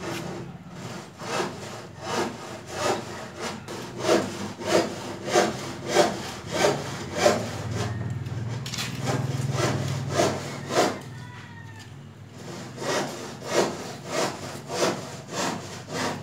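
Back-and-forth sawing strokes of a blade cutting through something by hand, about one and a half strokes a second, in runs with short breaks between them.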